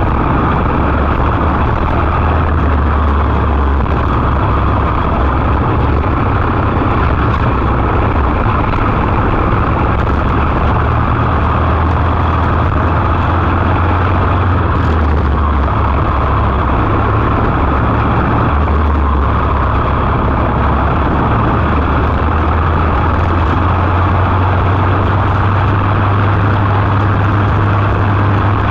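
Briggs & Stratton LO206 single-cylinder four-stroke kart engine running hard at race pace, heard from onboard the kart, its pitch dropping and rising again every few seconds as the driver lifts and accelerates through the corners.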